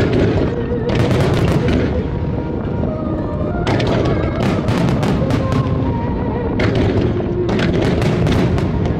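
Aerial fireworks shells bursting in rapid volleys over a continuous low rumble, with clusters of sharp cracks about a second in, around four seconds and again near the end. Music plays underneath.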